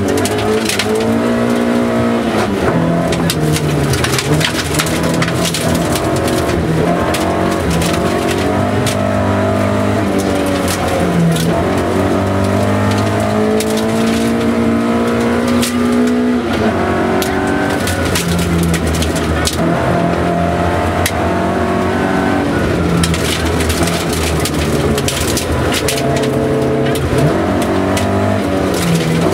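Rally car engine driven hard, heard from inside the cabin: the pitch climbs through each gear and drops at the shifts. Gravel rattles against the underbody.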